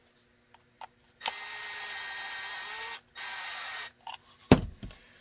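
Power drill running in two bursts, about two seconds and then just under a second, with a sharp knock on the bench soon after.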